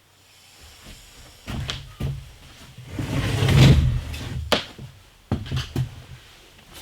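A series of knocks and clunks, like a door or cupboard being handled, with a louder rushing, rattling stretch about three seconds in and a few sharp clicks afterwards.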